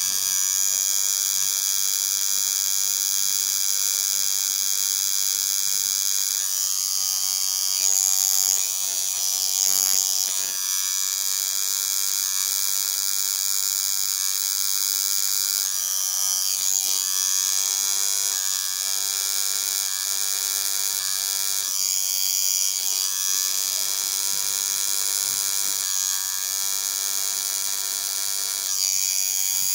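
Electric tattoo machine buzzing steadily while lining a tattoo, with a few brief shifts in its pitch.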